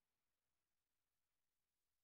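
Near silence: only faint hiss.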